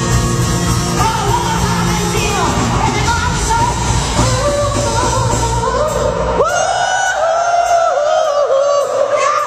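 Female singer with a live band performing a slow rock ballad, heard from the crowd in a large hall. About six seconds in, the band's bass drops out and a long, wavering high note carries on alone.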